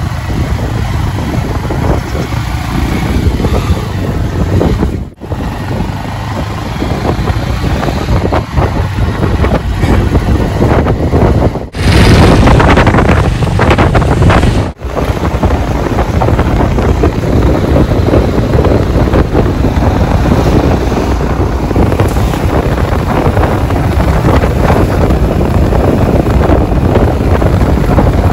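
Wind rumbling on a phone microphone with outdoor road noise, in several short clips that cut abruptly from one to the next. A louder gust of about three seconds comes near the middle.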